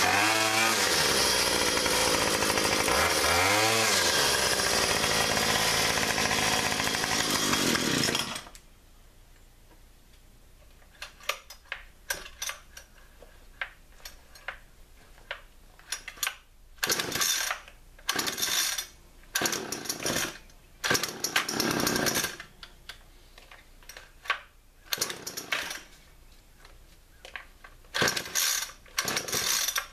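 A Homelite two-stroke engine running and revving, with its pitch swelling up and down twice; it cuts off about eight seconds in. A series of short bursts of sound follows, each about a second long and a second or two apart.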